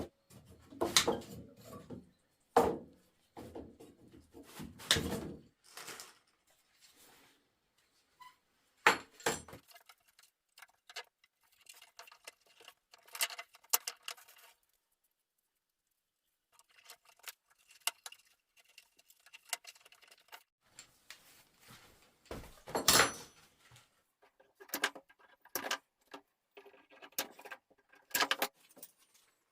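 Intermittent knocks, clatter and rustling of objects being handled, with a short dead-silent gap about halfway through.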